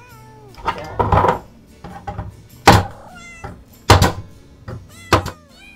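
Pneumatic nailer firing three times, a second or so apart, as it drives nails through a plywood plug into a plywood disc. Fainter whining tones glide up and down in pitch between the shots.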